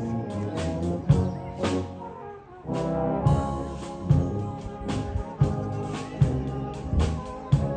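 Brass band playing a tune, with regular drum beats under the held brass chords. The playing thins to a brief lull about two seconds in, then the full band comes back in.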